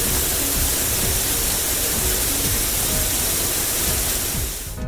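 Cartoon car-wash water-spray sound effect: a loud, even hiss of spraying water that cuts off abruptly near the end, over light background music.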